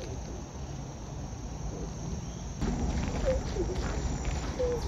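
Crickets trilling steadily as a thin high tone over outdoor background noise. About halfway through, the sound cuts abruptly to a louder low rumble on the microphone, with the insect tone still faintly there.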